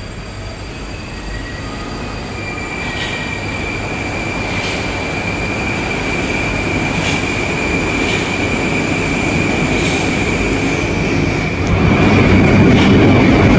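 Moskva-2020 (81-775) metro train at an underground station platform, with a steady high whine coming in a couple of seconds in over a rising rumble. About twelve seconds in it pulls away and the noise of the passing cars jumps louder.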